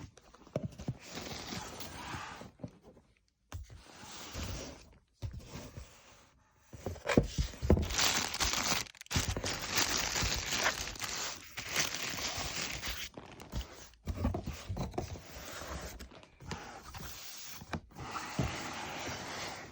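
Sneaker packaging being handled: paper and cardboard crinkling, tearing and scraping, with small knocks. It comes in short stretches broken by abrupt cuts.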